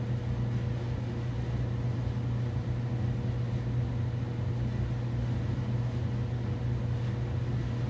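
Steady low hum with an even hiss over it, as chicken fries in hot grease. The hum is the loudest part and does not change.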